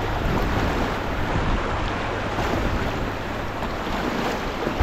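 Steady rush of river whitewater, with low wind rumble on the microphone.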